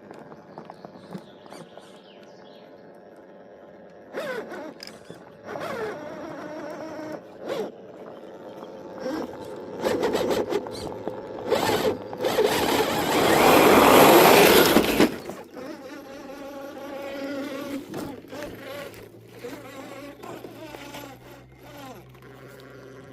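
Radio-controlled Ford Bronco 4x4 model driving off-road, its small electric motor and gears whining in short stop-start bursts. The longest and loudest run comes about twelve to fifteen seconds in, followed by quieter bursts.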